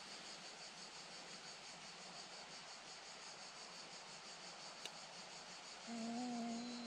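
Insects chirring steadily, with a man's low groan of pain starting about six seconds in: a fishing hook is stuck in his forearm.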